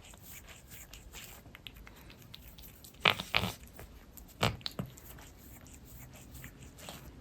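A cat grooming herself close to the microphone: soft wet licking and nibbling at her fur, with two louder farty, sputtering bursts about three and four and a half seconds in.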